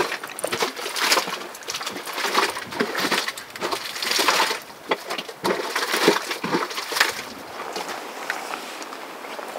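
Footsteps on loose gravelly ground, uneven steps coming about one or two a second.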